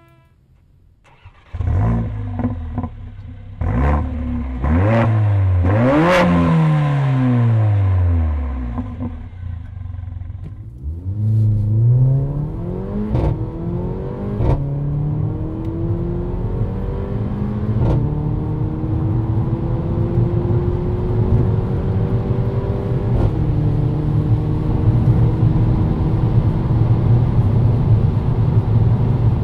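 The turbocharged 2.0-litre four-cylinder of a Mercedes-AMG A45 Edition 1, heard from inside the cabin. After a few rising and falling revs it accelerates hard at full throttle, its pitch climbing through the gears of the seven-speed AMG SpeedShift dual-clutch gearbox, with a short crack and a drop in pitch at each upshift.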